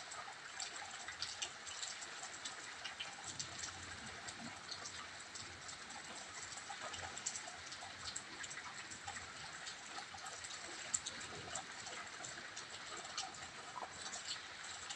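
Steady rain of a rainstorm, with many small drops tapping close by.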